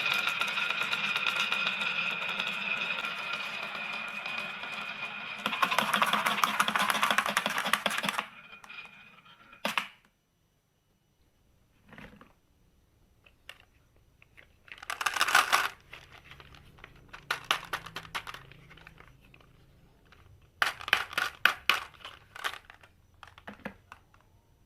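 A small toy motor whirring steadily, then marbles rattling and clattering down a marble run track in several bursts of rapid clicks, with quieter single clicks between them.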